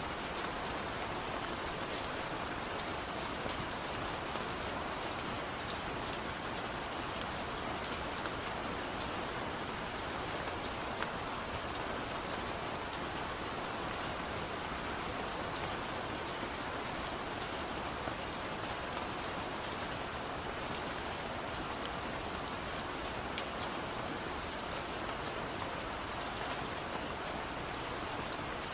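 Steady light rain falling, an even hiss with scattered drops pattering on a surface.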